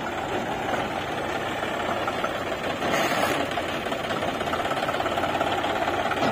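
Farm tractor's diesel engine running steadily with a fast, even beat as it drives off pulling a trailer.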